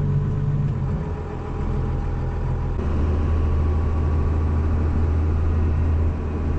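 Cummins 12-valve 6BT diesel in a 1973 Chevy C30 truck, heard from inside the cab while driving: a steady low drone. The note shifts about a second in and settles to a deeper, stronger hum from near three seconds in.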